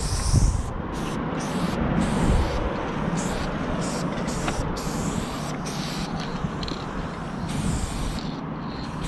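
Aerosol spray paint can hissing in short bursts that stop and start several times, over a steady low rumble.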